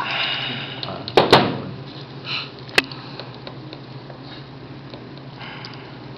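A few sharp metallic clicks and snaps of orthodontic pliers cutting and handling the wire arm of a Hyrax expander, two close together about a second in and one more near three seconds, over a steady low hum.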